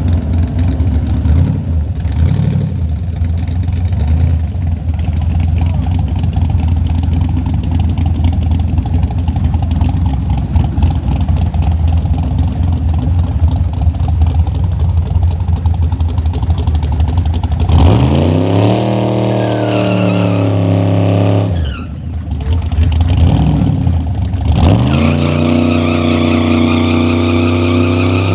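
Car engine running with a heavy low rumble, then revved twice: each time the pitch climbs quickly, holds for a few seconds and drops back, the first about two-thirds of the way in and the second near the end.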